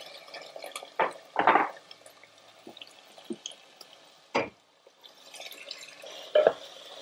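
Prawns frying in a pot with a soft steady sizzle, broken by a few sharp knocks and scrapes as chopped tomatoes are tipped in from a plastic container and stirred with a wooden spatula.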